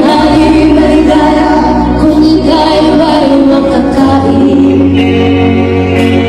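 Live band music at a sound check: female voices singing over a loud band with a sustained low bass.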